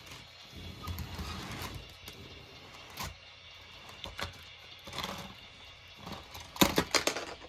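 Plastic HO-scale model freight cars being handled and lifted off the track: scattered light clicks and clatter of wheels and couplers, with a quick run of sharp clicks near the end.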